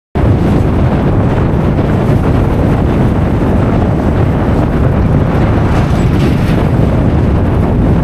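Strong gale wind buffeting the microphone: a loud, steady low rumble of wind noise.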